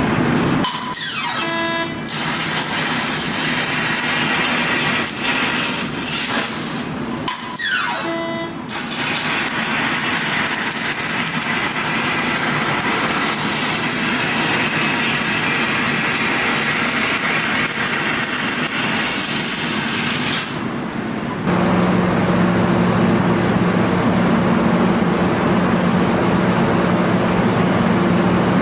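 20 kW fiber laser cutting machine working on thick carbon steel plate: a steady loud hiss of the cutting process, broken twice by a brief falling sweep. About twenty seconds in, the hiss gives way to a steady lower machine hum.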